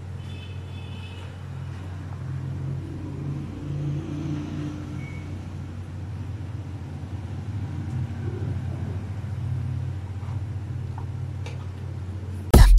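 A steady low hum with a rumble that rises and falls over it. Loud electronic music with a drum-machine beat cuts in near the end.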